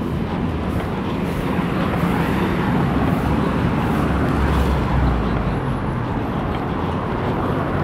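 Steady rumble of city street traffic, with a deeper rumble swelling briefly about four seconds in.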